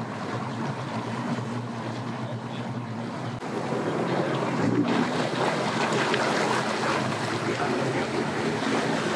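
Boat outboard motor idling with a steady low hum. About three seconds in, a Sea-Doo personal watercraft's engine takes over, louder and running, with water churning from its jet.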